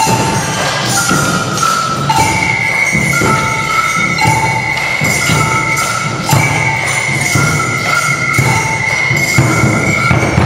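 A children's percussion group playing together: tambourines and maracas shaking over a bass drum's steady beat. Two ringing notes alternate about once a second, and a long high note is held from about two seconds in.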